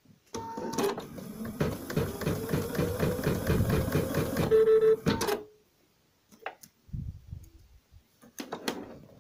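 Computerised embroidery machine stitching: a fast, even rhythm of needle strokes over a steady motor hum that stops about five seconds in, followed by a few faint clicks.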